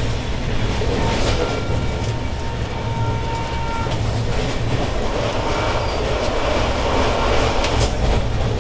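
Passenger train running at speed: a steady rolling rumble of wheels on rail, with a few sharp clicks as the wheels pass over rail joints.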